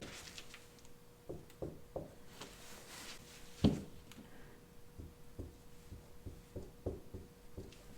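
Quiet room tone with a faint steady hum and scattered soft clicks and knocks, one louder knock a little past halfway.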